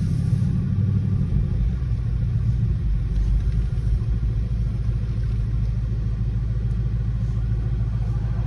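Steady low rumble of a 2018 Ford Mustang GT's 5.0L Coyote V8 on its stock exhaust, with road noise, heard from inside the cabin while driving at an even pace.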